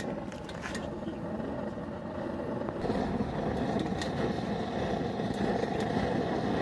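Brass blowlamp burning with a steady rushing noise, its flame jet playing on the hot bulb of a Merit hot-bulb engine to preheat it for starting. The noise gets louder about three seconds in.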